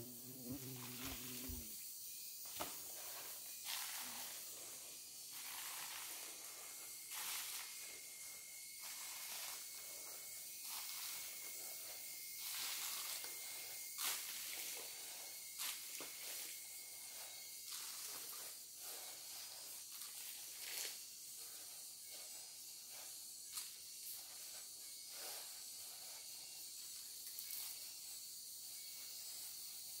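Quiet forest ambience: a steady high insect hiss, joined for about ten seconds in the middle by a thin steady whine. Scattered light crunches and rustles run throughout, footsteps in leaf litter and soil.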